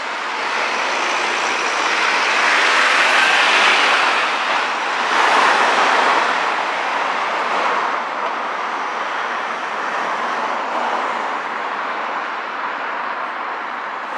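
Road traffic passing on a city street: a steady wash of tyre and engine noise that swells twice as vehicles go by in the first half, then evens out.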